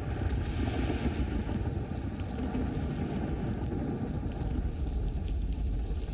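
Heavy rain and wind outdoors: a steady, dense rushing noise with a strong low rumble.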